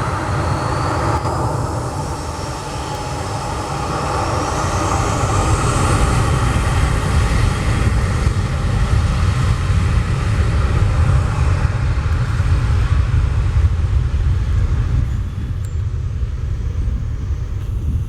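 Boeing 737-700's CFM56-7B turbofan engines spooling up to takeoff thrust: a whine rises in pitch over the first six seconds over a heavy, steady rumble, and the high whine fades near the end.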